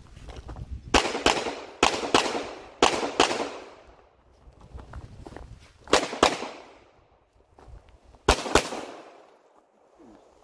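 Pistol shots fired in quick pairs: five double-taps, ten shots in all, the two shots of each pair about a third of a second apart, with longer gaps between pairs. Each shot is sharp and followed by a short echo.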